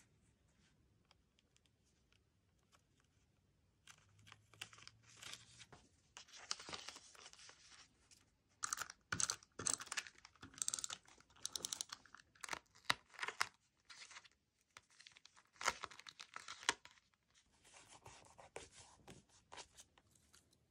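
A clear plastic sleeve and paper crinkling and rustling as they are handled, in a run of crackly bursts with sharp ticks that starts about four seconds in.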